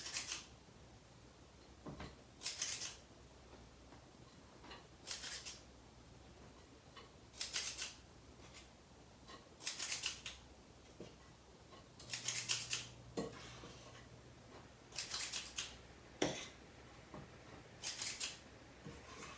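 Cake batter being scooped out of a bowl and dropped into tins: a short scraping scrape of the scoop about every two and a half seconds, about eight times.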